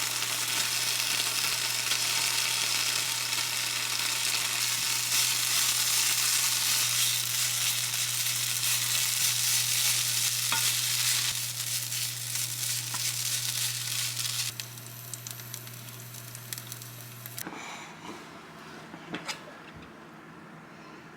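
Food sizzling as it fries in a pan, over a steady low hum. The sizzle eases off about halfway through, then the sizzle and the hum cut off together about three-quarters of the way in, and a few light knocks follow.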